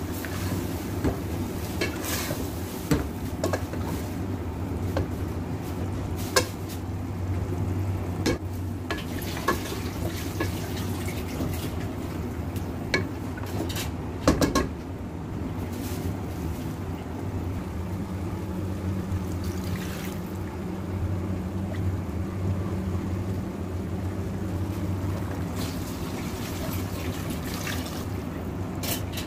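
Mutton in yogurt masala being stirred in an aluminium pressure-cooker pot with a wooden spoon: scattered knocks and scrapes of the spoon against the pot, a few of them sharp, over a steady low hum.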